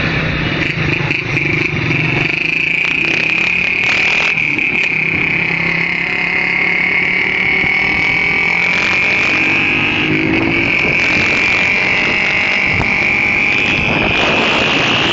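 Small motorcycle engines running at speed along a road, with a steady high whine that drifts slowly up and down in pitch.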